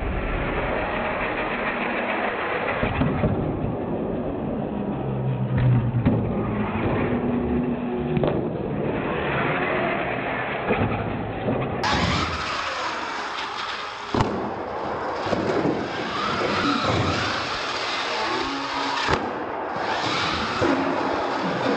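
Electric radio-controlled monster trucks driving hard on a concrete floor: motors whining up and down in pitch as the throttle changes, tyres rubbing on the floor, and a few sharp knocks as trucks land from jumps.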